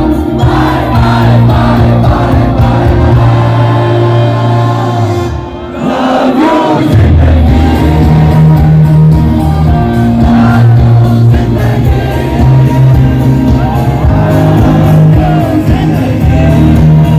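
Loud live concert music: a band playing with sung vocals over a heavy, steady bass, with a crowd audible. The music dips briefly about five and a half seconds in, then comes back in full.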